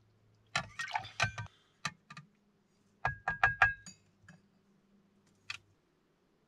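Ingredients and bottles being handled into a blender jar: a run of sharp knocks, clicks and clinks, with a quick cluster of ringing clinks about three seconds in.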